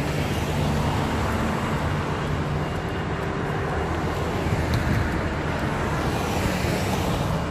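City street traffic: motor vehicles running past with a steady low engine hum, the tyre and engine hiss growing louder about six seconds in.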